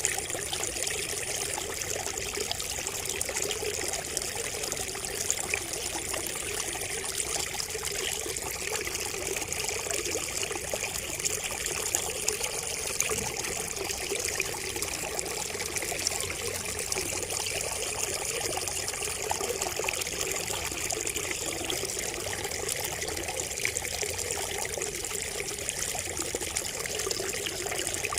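Water trickling steadily from a bamboo spout, a continuous splashing babble dense with small drips and plops.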